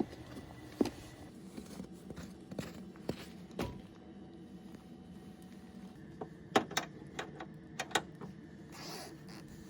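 Scattered light knocks and clicks, with a cluster of sharper clicks about two-thirds of the way through and a soft rustle near the end.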